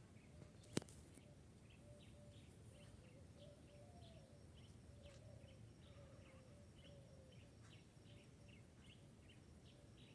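Faint birdsong: many short, high chirps repeating throughout, with a softer wavering lower call under them. One sharp click about a second in.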